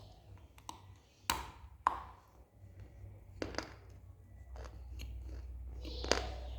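Multani mitti (Fuller's earth clay) being bitten and crunched in the mouth close to the microphone: about four sharp crunches spread over the few seconds, with softer chewing clicks between.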